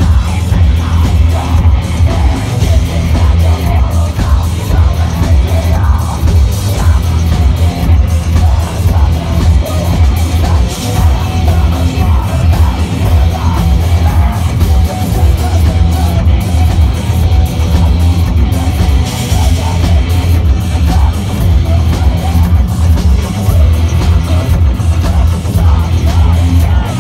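Industrial metal band playing live and loud: distorted electric guitars, bass and drum kit, with vocals over the band.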